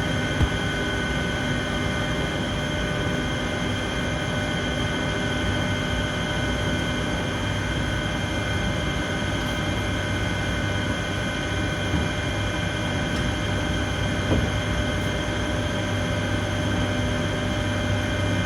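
Steam cleaner running steadily, its jet blasting down acid-stripped alloy wheels. There are a couple of faint knocks, one about half a second in and another near the end.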